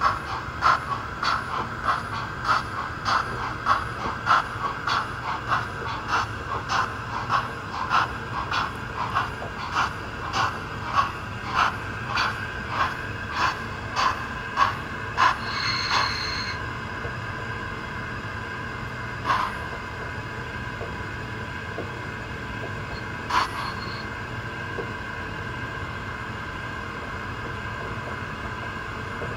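Sound-equipped Roco BR 10 002 model steam locomotive chuffing about twice a second as it runs at reduced speed. About halfway through the chuffs stop after a brief high squeal, leaving a steady hum with a couple of single clicks.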